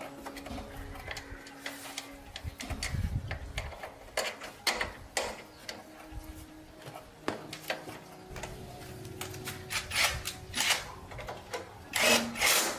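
Irregular clicking and clacking of hand work with tools and parts, the clicks coming louder and closer together near the end.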